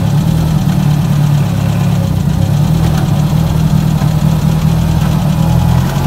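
Volkswagen Gol G2's four-cylinder CHT engine running steadily under load as the clutch is let out in reverse, with a shuddering vibration from underneath. The owner traces this clutch-release noise to a dented exhaust tunnel heat shield vibrating.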